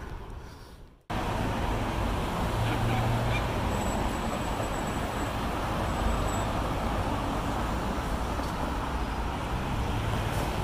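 Steady road traffic noise from cars and buses on a busy multi-lane city street, starting just after a brief drop about a second in.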